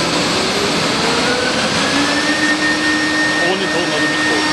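CNC woodworking machining center running: the router spindle and its dust extraction make a loud, steady noise. About a second in, a whine rises a little in pitch and then holds steady.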